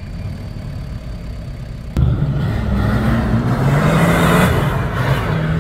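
Off-road vehicle engine running low, then, after an abrupt jump in level about two seconds in, revving louder with its pitch rising and falling as it works, with a rushing noise over it partway through.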